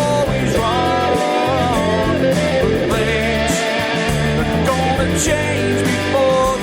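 Rock song playing, with guitars and a singing voice over bass and drums.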